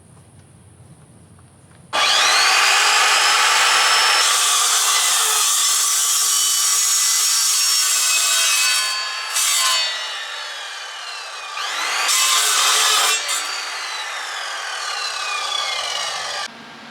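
A power saw cutting steel stock: it starts suddenly about two seconds in with a rising whine, runs loud through the cut, eases off for a moment in the middle and picks up again with another rising whine, then cuts off suddenly near the end.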